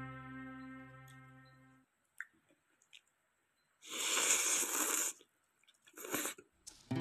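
A person slurping noodles of thukpa noodle soup: one loud slurp about four seconds in that lasts just over a second, then a shorter slurp near the end. Background music fades out at the start and comes back right at the end.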